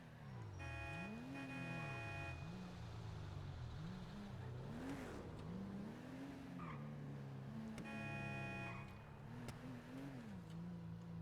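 Car engines revving up and down over and over, with a car horn sounding twice: a long honk near the start and a shorter one about eight seconds in.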